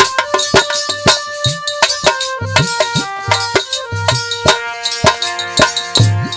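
Instrumental break in Indian folk music: regular hand-drum strokes, some low strokes bending upward in pitch, with a shaker rattle over a held melody line.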